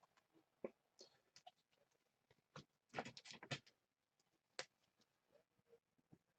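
Faint handling noises from trading cards being slid into plastic sleeves: a few scattered soft clicks and rustles, with a short cluster about three seconds in.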